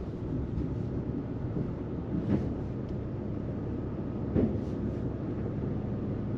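A vehicle running steadily on the road, with a low engine and road rumble. Two short knocks come about two and four seconds in.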